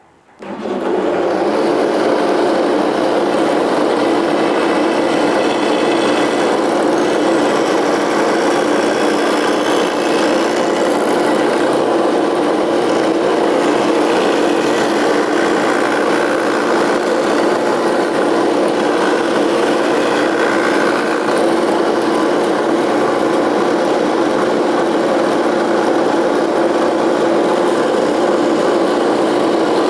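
Wood planer's motor starting up and then running steadily, spinning a cup grinding wheel that grinds the edge of a planer blade clamped in a sliding holder: the blade is being sharpened.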